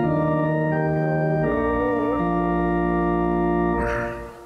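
Church organ playing a short phrase of held chords, changing chord a few times and releasing about four seconds in, with the room's reverberation dying away after it.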